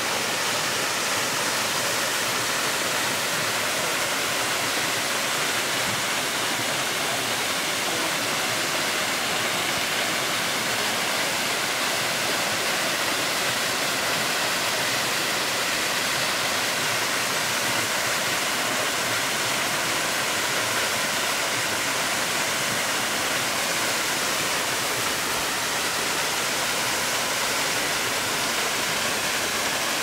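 Small waterfall spilling into a plunge pool: a steady, even rush of falling and splashing water.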